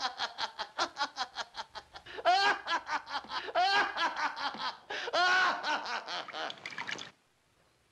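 A man laughing in quick high-pitched bursts, then in longer rising-and-falling squealing laughs, cut off abruptly about seven seconds in.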